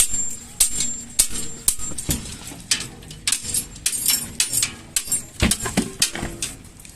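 Repeated sharp metallic clinks and knocks, roughly one or two a second, fading after about six seconds.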